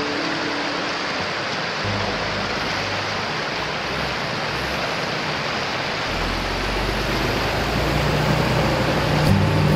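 Rushing white water of a river rapid, a steady loud noise. Low music notes fade in underneath from about two seconds in and grow toward the end.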